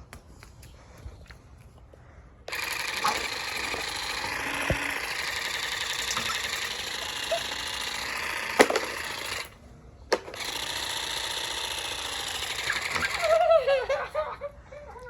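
Battery-powered electric water blaster firing: its pump motor runs steadily as it shoots water, in two long bursts, about seven seconds then, after a short pause, about three seconds. A short wavering cry follows near the end.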